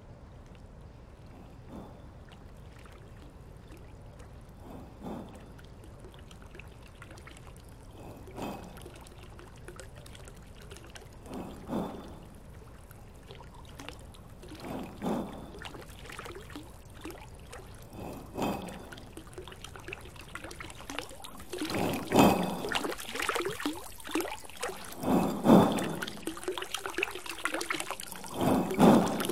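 Water pouring and splashing into a basin in recurring surges about every three and a half seconds, over a faint steady hiss. The surges grow louder after about two-thirds of the way through.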